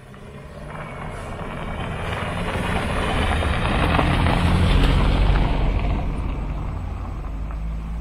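A car driving past on a dirt road: engine hum and tyre noise grow louder as it approaches, are loudest about four to five seconds in as it passes, then fade as it moves away.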